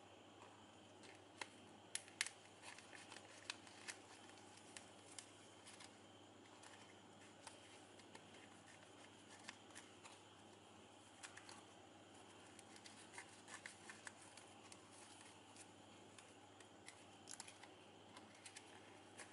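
Faint, irregular crinkles and clicks of shiny ribbon being handled, threaded through loops and pulled by fingers.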